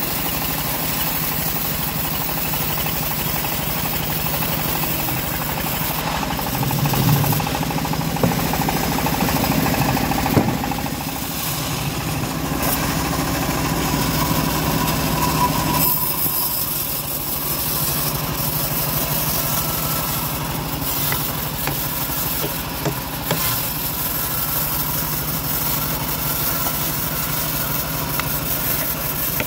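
Homemade bandsaw sawmill running, its drive engine giving a steady drone, with a few louder knocks between about seven and ten seconds in and a shift in the sound about halfway through.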